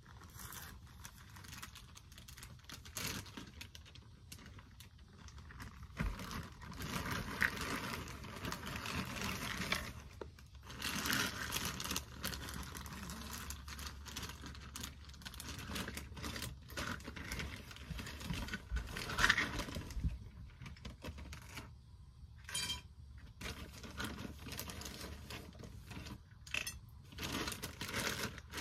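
Irregular rustling and crinkling with scattered light clicks, like things being handled up close.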